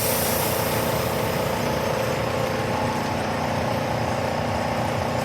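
Compressed air hissing into the air cylinder of a Grob 4V-18 bandsaw's air-hydraulic feed as it draws the work in. The hiss comes on at the start and fades over a couple of seconds, over a steady machine hum.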